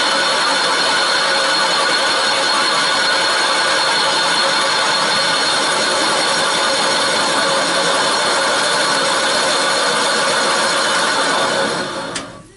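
Valve seat machine's spindle running steadily with a steady whine as its cutter machines a counterbore for a valve seat insert in a Honda CB77 cylinder head's cast-iron combustion chamber. The machine runs down and stops just before the end.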